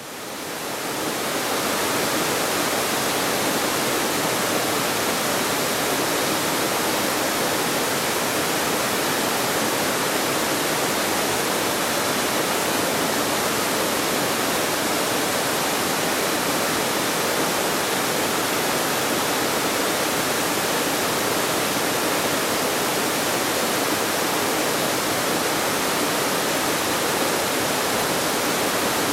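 Waterfall pouring over several rock ledges: a steady, full rushing of water that fades in over the first couple of seconds and then holds even.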